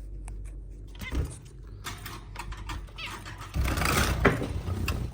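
Zebra finches calling in short, nasal, high cries, mixed with handling and rustling noise as young birds are put back into their cage. A louder burst of rustling comes about three and a half seconds in.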